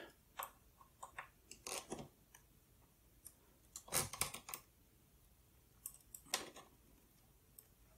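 A small screwdriver working screws out of a PowerBook 180 laptop's display: faint scattered clicks and scrapes of metal on metal and plastic, with slightly louder clusters about two, four and six seconds in.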